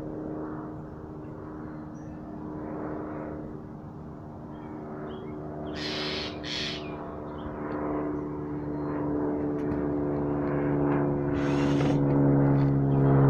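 Cordless drill driving screws in short bursts: twice about six seconds in and once near the end. Under it, a steady low hum grows louder throughout.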